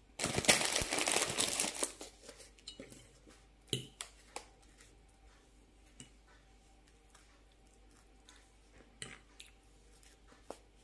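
Plastic packaging crinkles loudly for about two seconds near the start as a puffed rice cake is taken out. After that come a few light clicks of a metal fork against a ceramic plate.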